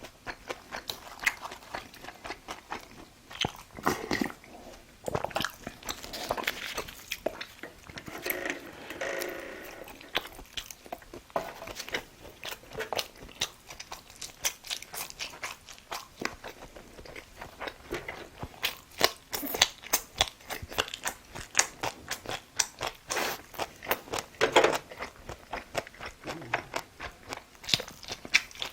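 A person chewing and eating close to the microphone: many short wet mouth clicks and smacks, falling into a fairly regular chewing rhythm in the second half.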